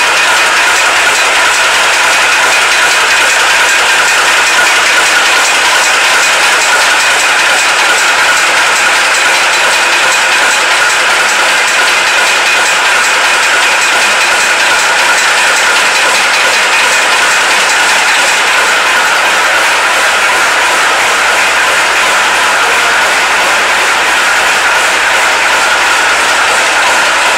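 Praga S5T truck's diesel engine running steadily just after a cold start on a frosty day, loud and unchanging throughout.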